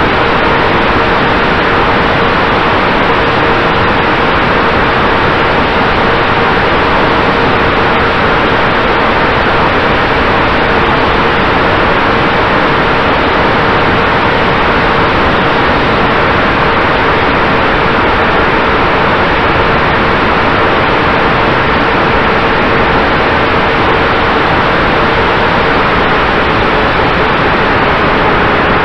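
Steady, loud rushing noise with a faint constant hum underneath, picked up by a camera riding on a radio-controlled plane in flight: airflow and motor noise. The level stays even throughout, without swells.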